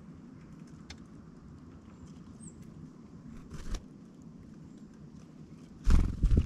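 A bird's wings flapping close to the feeder. A brief rustle comes halfway through, then a loud burst of rapid wingbeats near the end.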